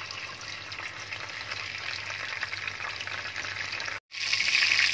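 Oil sizzling and crackling steadily as masala-coated king fish slices shallow-fry in a pan. The sound drops out for an instant about four seconds in, then comes back louder.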